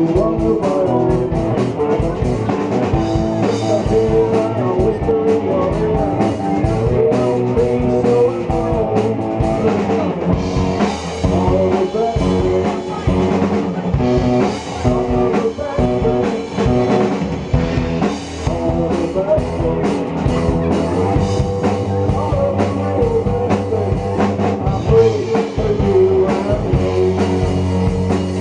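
A rock band playing live: electric guitars over a drum kit, a steady rock groove.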